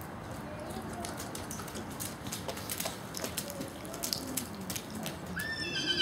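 A pony whinnies near the end, a high wavering call that starts about five seconds in, after a stretch of low arena hubbub with scattered soft hoof knocks.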